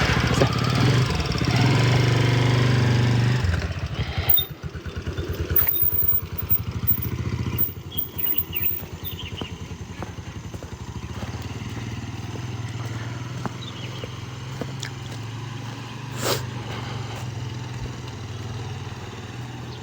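Motorcycle engine just started, running at higher revs for the first three or so seconds, then dropping to a steady lower running note that eases off near the end. A single sharp knock sounds about sixteen seconds in.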